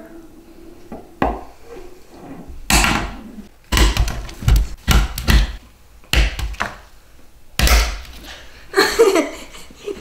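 Eggs spinning, wobbling and knocking on a wooden tabletop: a run of irregular sharp knocks and thumps on the wood, and one raw egg cracks open. Boys laugh near the end.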